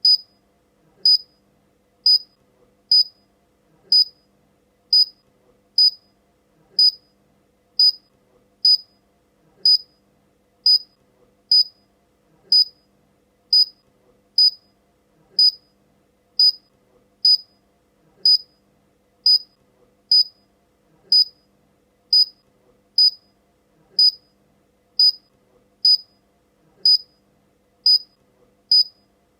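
Short, high-pitched electronic beeps repeating steadily about once a second.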